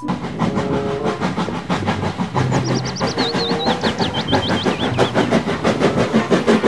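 Steam locomotive pulling passenger coaches along the track, running with a fast, even rhythmic beat. A bird chirps a quick run of calls in the middle.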